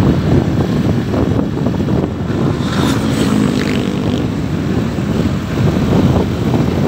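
Motorcycle riding on a wet road: its engine runs steadily under the rush of wind past the microphone, with a short pitched tone about three seconds in.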